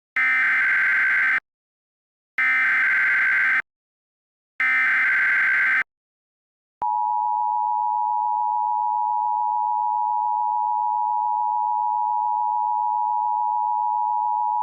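Emergency Alert System tones: three short bursts of SAME header data, each about a second long, then a steady two-tone attention signal held for about eight seconds.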